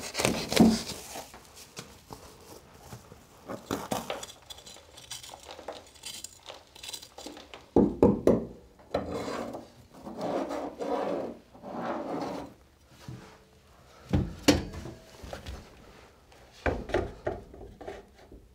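Hand work at a square opening cut through a wooden cabin wall: scraping and rubbing at the insulation lining the hole, with knocks against the wood. The longest scraping comes about halfway through, and near the end sharp knocks and rubbing come as a stainless-steel flue pipe is fitted into the metal wall pass-through.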